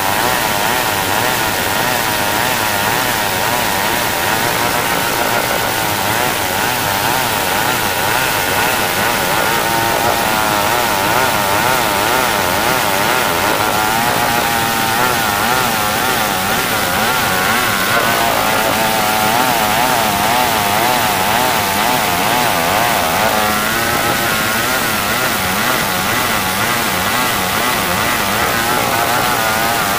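Old chainsaw running at full throttle while ripping lengthwise through hard marsawa batu timber. Its engine note wavers rapidly up and down under the load of the cut, steady and unbroken throughout.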